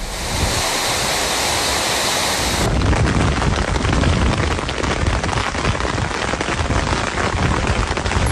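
Heavy rain in a storm: a loud, dense rushing noise with a deep rumble of wind on the microphone. About three seconds in it cuts abruptly to another recording of the same kind.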